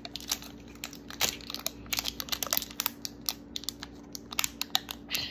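Irregular plastic crinkling and clicking as the seal strip is picked and peeled off a plastic Mini Brands capsule ball with short fingernails.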